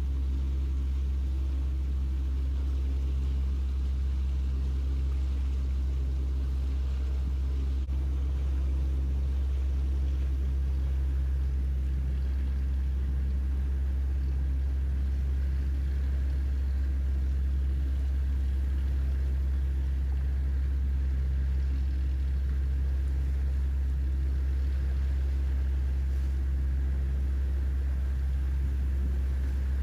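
Steady low rumble of a large explorer yacht's engines and machinery as it manoeuvres slowly in to dock, with a faint constant hum over it.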